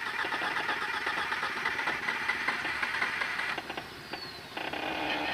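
Jeep Wrangler YJ's engine running at low speed under load while crawling over rocks, with a rapid, even pulsing. The sound drops away a little past three and a half seconds in, then picks up again near the end.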